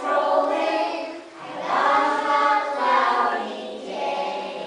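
A group of young children singing together in unison, in phrases with short breaks between them.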